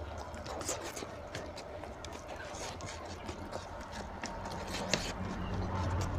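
Close-miked wet chewing and lip smacks, with fingers squishing and mixing rice and curry on a plate: many short, irregular clicks and smacks over a low steady hum.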